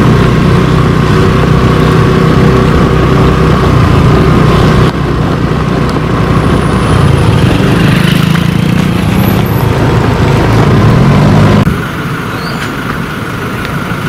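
A motor vehicle's engine running loudly and close, its pitch wavering and rising a little in the later part. The sound changes abruptly twice, about five seconds in and again near twelve seconds.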